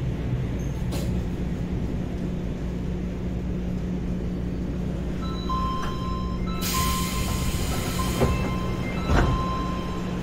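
Subway train's running gear and motors humming as it draws to a stop at the platform. About halfway in, steady beeping tones start, then a loud burst of air hiss and a couple of clunks follow as the train stands.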